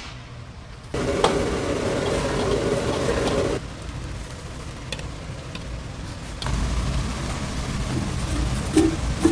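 Kitchen cooking noise in short cut-together clips: food sizzling and frying, with a few sharp clinks of utensils.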